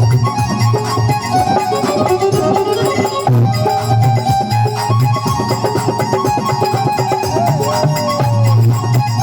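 Instrumental interlude of Indian folk devotional music: a sustained melody line, with one sliding phrase near the end, over a steady hand-drum rhythm.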